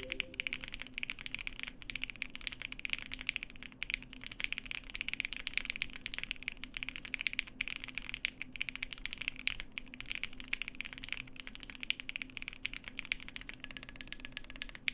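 Fast, continuous typing on a Cannon Keys Bakeneko60 mechanical keyboard: a dense run of key clicks from Lavender switches, lubed with 205g0 and filmed, under PBT Sugar Plum keycaps.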